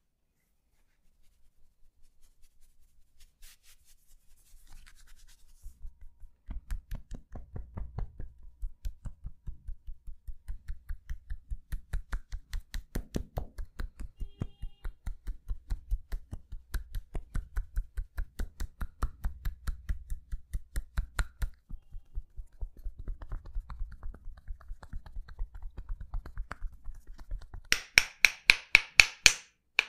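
Percussive massage strokes on the body: quick rhythmic strikes, about five a second. They start faint and grow louder about six seconds in, then turn sharper and louder near the end.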